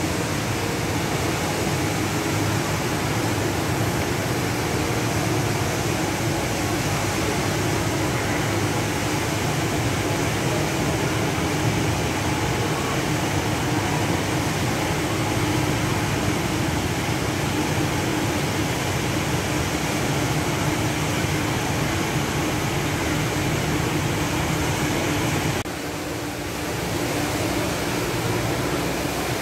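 Steady rushing roar of the Rain Vortex, a large indoor waterfall, falling through the glass dome. It briefly drops and thins near the end.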